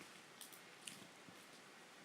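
Fingers poking slime, giving a few faint, soft sticky clicks and pops.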